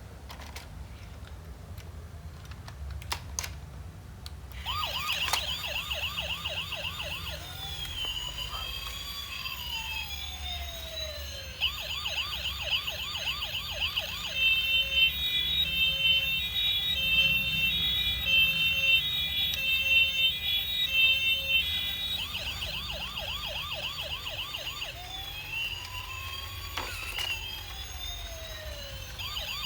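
Toy fire truck's electronic siren switching on about four and a half seconds in and cycling through its patterns: a fast warble, slow rising-and-falling wails, and a louder two-tone hi-lo section in the middle, then the same cycle again. A couple of clicks come just before it starts.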